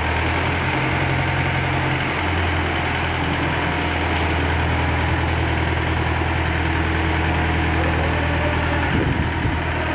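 Diesel engine of a crane running steadily at low revs with a deep hum, and a few short knocks near the end.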